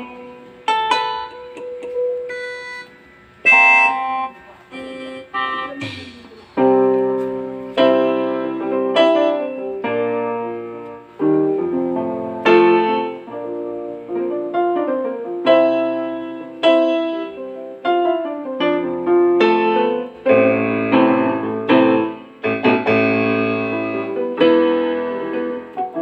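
Yamaha PSR-E333 portable keyboard played with both hands in a piano-like voice: a few scattered notes at first, then full chords over low bass notes from about six seconds in.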